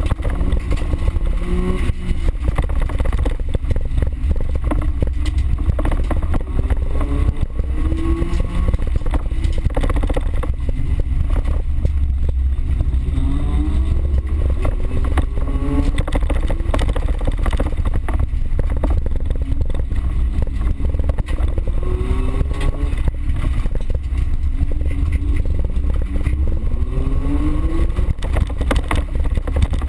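Small car's engine heard from inside the cabin while it is driven hard on a dirt track, repeatedly revving up and dropping back as it accelerates and shifts, over a heavy low rumble. Frequent sharp knocks and rattles throughout.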